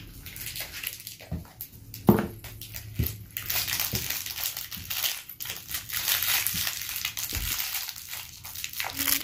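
Crinkly plastic toy packaging being crumpled and torn open by hand: a few sharp knocks in the first seconds, then continuous crackling.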